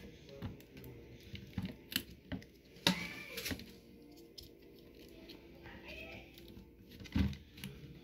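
Small clicks and knocks of metal and plastic parts as an electric fan's motor stator and housing are handled and fitted by hand, with a few sharper knocks, the loudest about 3 s and 7 s in.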